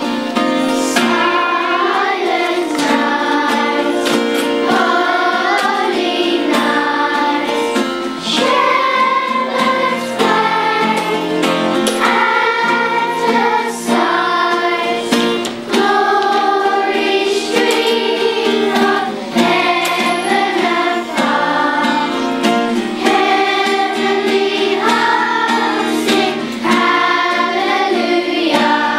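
A children's choir singing a Christmas carol together, many young voices in unison.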